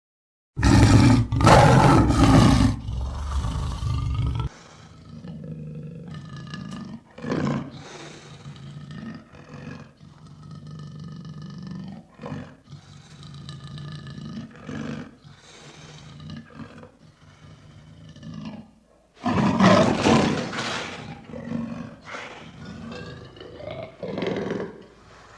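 Lion roaring loudly: a long roar starting about half a second in, then a run of quieter calls, and a second loud roar about 19 seconds in.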